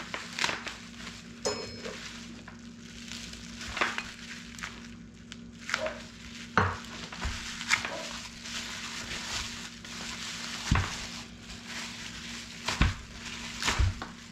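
Plastic bubble-wrap bag rustling and crinkling as a motor controller and its bundled wires are worked out of it, with irregular small clicks and a few soft knocks near the end.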